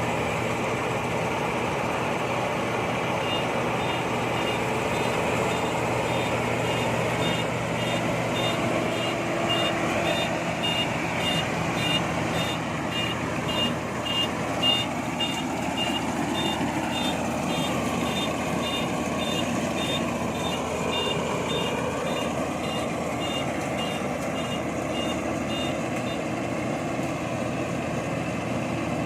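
INARI combine harvester's engine running steadily. Over it, for most of the stretch, a high electronic warning beep repeats a little under twice a second, the kind of alarm sounded while the machine reverses.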